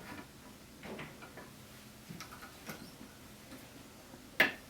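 Scattered light clicks and taps of the metal parts of a mortising jig being fitted and adjusted on a door, with one sharper click near the end.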